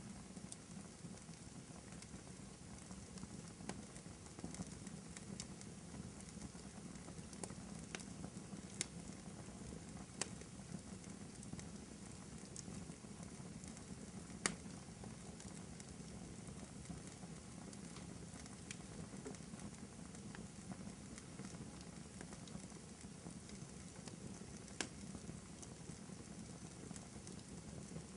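Wood fire crackling in a fireplace: a steady low rumble of flames with scattered sharp pops, the loudest about a third of the way in, half way and near the end.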